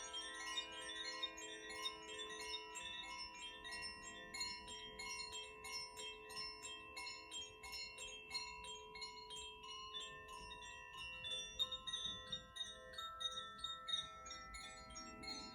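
Koshi chimes rung gently by hand: light strikes of the clapper on the tuned metal rods inside the bamboo tube, several a second, their overlapping tones ringing on.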